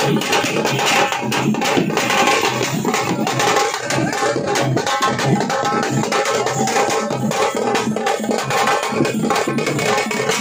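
Teenmaar drumming: a fast, loud, continuous beat of many drum strokes.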